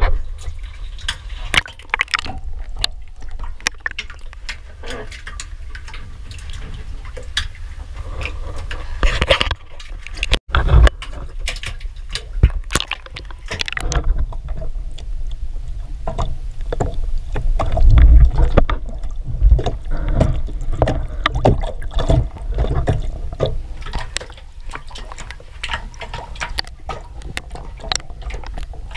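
Water sloshing and splashing in a tank of live red groupers as a hand stirs among them, with scattered knocks and a low rumble throughout, louder around the middle.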